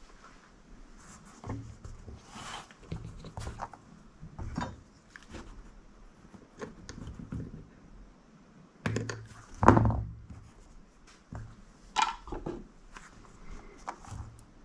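Handling noise of a small FPV drone frame and its motor wires being worked by hand: scattered taps, clicks and rustles, with a louder knock about ten seconds in and another about twelve seconds in.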